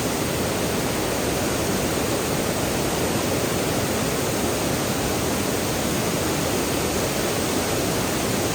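Steady rush of water falling over rocks in a creek at a waterfall, an even roar without breaks.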